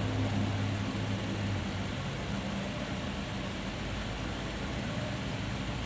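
Steady low hum with a constant background hiss, typical of room machinery such as an air conditioner.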